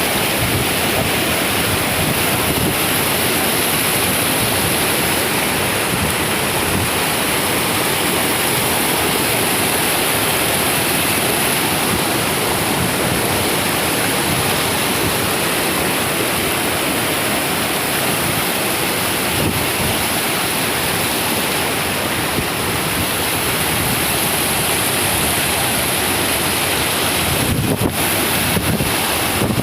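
Floodwater rushing: a steady, loud rushing noise of flowing water, with wind buffeting the microphone.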